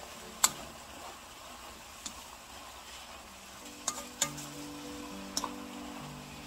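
Cabbage stir-frying in a pan with a steady sizzle. A utensil knocks against the pan about five times, with the loudest click about half a second in and a pair near four seconds in.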